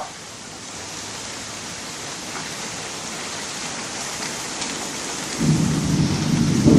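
Steady hiss of heavy rain. About five seconds in, a loud low rumble of thunder breaks in suddenly and keeps rolling.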